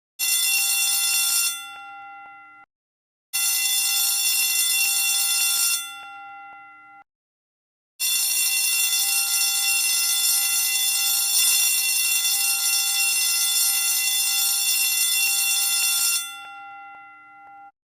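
Electric alarm bell ringing in three bursts: a short one, a slightly longer one, then a long one of about eight seconds. Each time the striker stops, the gong is left ringing out and fading.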